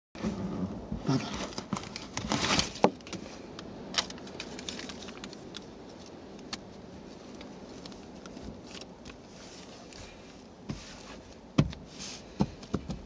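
Hands handling an aftermarket carbon-fibre seat heater pad and the seat's fabric cover: rustling and crinkling with scattered sharp clicks and taps, busiest in the first three seconds, with a few more clicks near the end.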